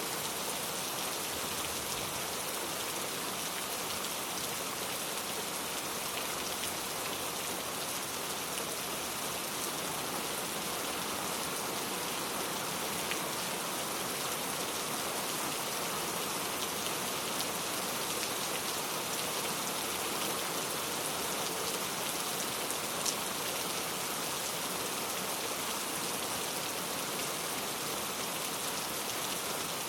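Steady rain falling, with scattered drops ticking on a surface.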